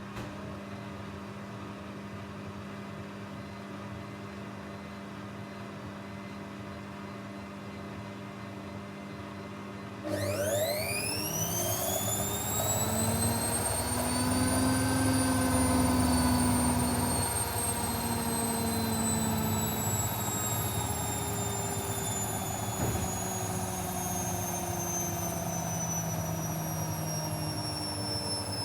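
Techwood WB 91042I washing machine running with a steady low hum. About ten seconds in, it gets louder and the motor's whine shoots up sharply in pitch as the drum speeds up into a spin, then the pitch drifts slowly down.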